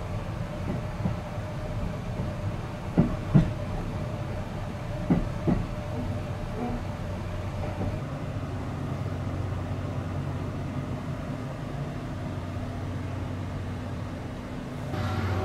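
Interior rumble of a Cassiopeia sleeper carriage, heard inside a compartment. Two pairs of short knocks come about three and five seconds in, and then a steady low hum takes over.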